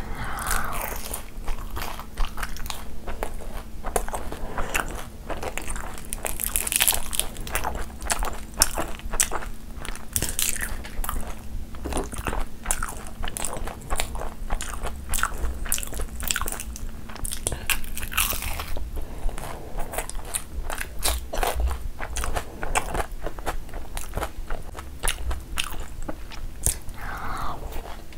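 Close-miked eating: a person chewing and biting mouthfuls of mutton curry and puri, a dense run of wet mouth clicks and crunches that goes on without pause, mixed with the squish of fingers squeezing gravy-soaked puri and meat.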